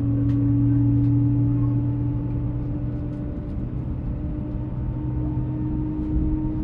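Airbus airliner cabin during taxi: the steady hum and drone of the jet engines at low power, with a few faint clicks. The pitch of the drone edges up slightly about five seconds in.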